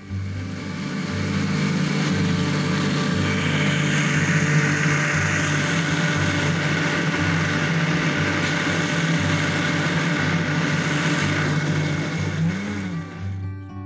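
Countertop electric blender running steadily as it blends cake batter: a loud, even motor hum under whirring noise. It starts just after the beginning and stops about a second before the end.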